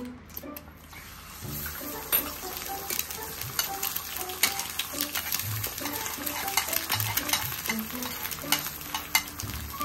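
A raw egg frying in oil on a small iron griddle plate, sizzling with a steady crackle. The sizzle swells about a second in as the egg goes onto the hot plate.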